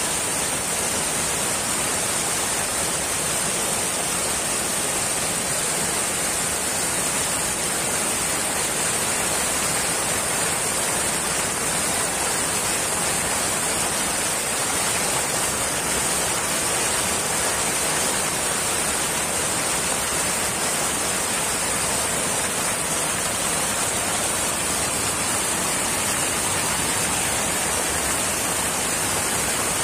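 Fast floodwater pouring over a road and churning through roadside bushes: a steady, unbroken rush of water with a bright hiss.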